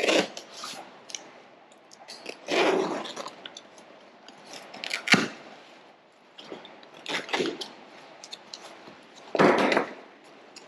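Small cardboard box being opened by hand: a knife slitting the packing tape and the cardboard flaps scraping and rustling. It comes in about five short bursts, with a sharp snap about halfway through.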